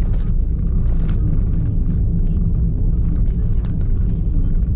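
Steady low rumble of a vehicle travelling along a road, with scattered short clicks and ticks over it.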